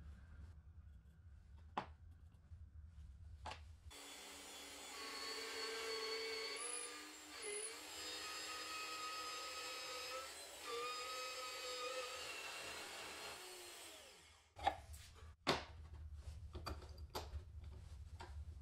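A small electric power tool, of the drill or router kind, runs steadily for about ten seconds with a high motor whine and hiss. Its pitch dips briefly twice, then it winds down. A few sharp knocks and clicks of handling wood and tools come before and after it.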